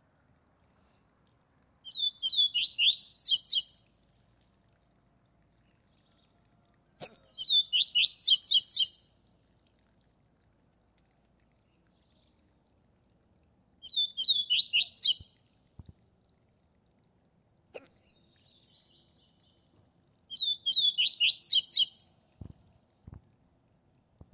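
Papa-capim seedeater (Sporophila) singing: four short phrases of fast, high twittering notes a few seconds apart, with a few faint chips in between.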